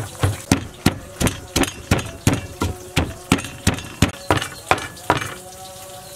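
Wooden pestle pounding in a mortar, steady thuds at about three a second, stopping about five seconds in.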